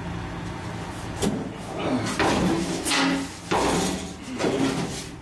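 A steel pickup door from a 1969 Chevy C10 being lifted and laid on a workbench, knocking and scraping against it. A sharp knock comes about a second in, followed by several louder clunks and scrapes, some with a short metallic ring.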